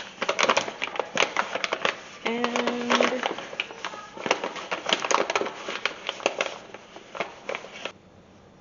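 A half-cup measuring cup scooping and scraping through self-rising flour: a dense run of crackling, crunching scrapes that stops suddenly near the end.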